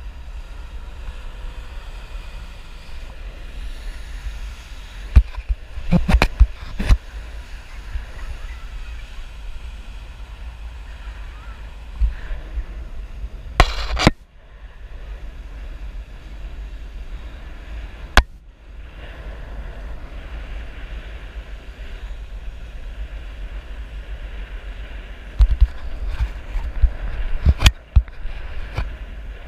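Wind rumbling steadily on an action camera's microphone, broken by several sudden loud knocks and buffets, clustered around a quarter of the way in and near the end.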